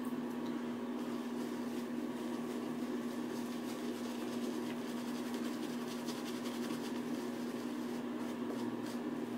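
Boar-hair shaving brush working lather over the face in faint, repeated swishing strokes, under a steady hum with one fixed low tone.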